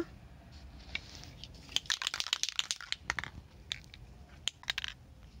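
A sheet of newspaper advertising flyer rustling and crackling as it is handled and laid flat on pavement, with a string of sharp clicks and crinkles from about two seconds in.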